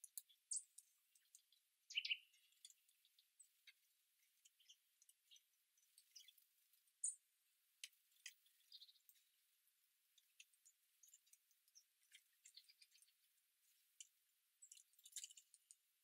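Small songbirds at a garden feeder giving short, scattered high chips and calls, faint and thin, with a few louder notes among them.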